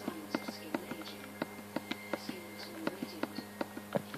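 Quick, sharp clicks, about three or four a second, as an accessory is reforged again and again at a game's reforge menu. Faint video-game music and a steady low hum run underneath.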